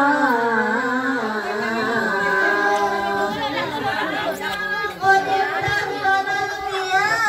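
Voices singing without instruments in a slow chant, with long held notes that glide from one pitch to the next.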